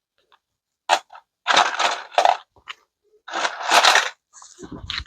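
Crinkling, crackling rustles of plastic packaging in three bursts, with a low rumble starting near the end.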